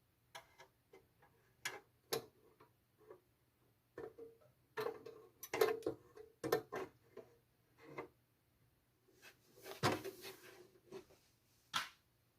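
Irregular light clicks and knocks of computer hardware being handled, bunched into clusters about five and ten seconds in, over a faint steady low hum.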